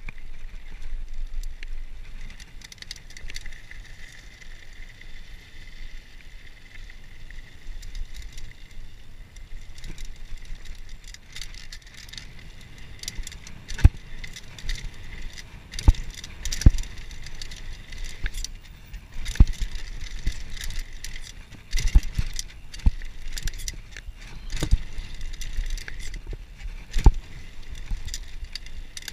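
Downhill mountain bike with a dual-crown fork riding down a dirt trail: tyres running on dirt, with the chain and bike rattling and sharp knocks over bumps. The knocks come more often in the second half.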